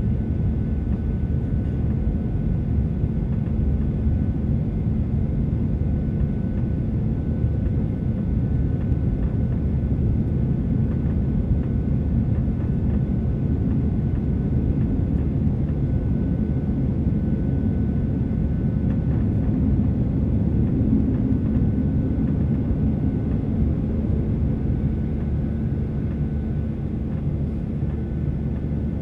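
Cabin noise of a Boeing 737-800 climbing after take-off: the steady low rumble of its CFM56 engines and the airflow past the fuselage, with a faint steady high whine above it.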